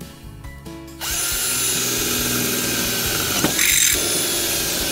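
Cordless drill boring into a metal square bar with a 7 mm cobalt bit. It starts about a second in, then runs steadily as the bit cuts, with a high whine. The pitch dips briefly past the middle.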